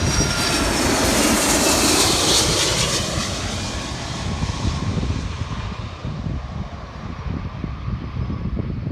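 Twin-engine Boeing 757 jet engines: a loud rush of jet noise that swells in the first couple of seconds, with a faint falling whine, then fades away. Wind buffets the microphone underneath.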